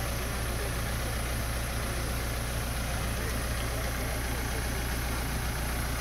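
Case 580 Super E backhoe loader's diesel engine running steadily.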